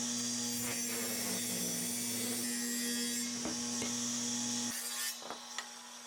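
A saw cutting through wood, a steady rasping sound that stops about three-quarters of the way through, followed by a few light knocks.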